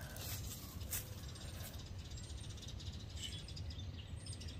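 Faint outdoor background with light bird chirps, and a small click about a second in.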